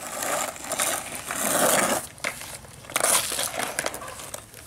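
Sand scraping and crunching as a plastic toy excavator's bucket is pushed and dragged through it, mixed with light clicks of plastic on plastic. It comes in two stretches: a longer one over the first two seconds and a shorter one about three seconds in.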